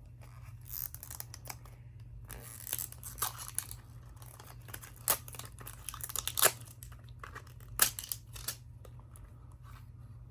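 Paper wrapping being torn and crinkled off a small gift box, in irregular rips and crackles, the sharpest a few seconds in and again near the middle and about three-quarters of the way through.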